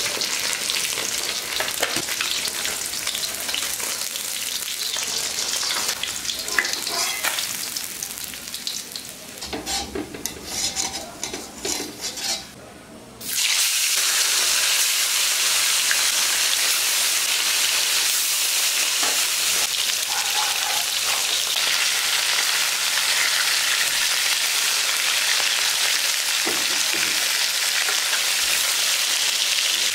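Hot oil sizzling in a pan of frying tilapia. About eight seconds in the sizzle dies down amid a few clicks, then a loud, steady sizzle starts abruptly about thirteen seconds in and carries on.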